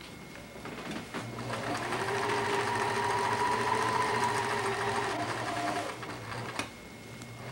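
Electric sewing machine running steadily as it stitches a seam through a fabric quilt panel. It starts about a second in and stops about six seconds in, followed by a single click.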